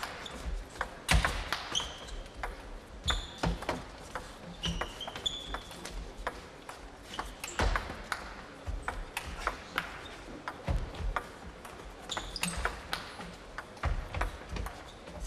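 Table tennis rally: the ball clicks off the rackets and the table in a long, irregular exchange, with a few short squeaks of shoes on the wooden floor.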